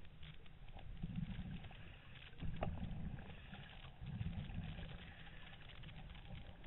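Muffled underwater noise heard through a camera's waterproof housing: three low rumbling swells about a second and a half apart, the second the loudest, over scattered faint clicks.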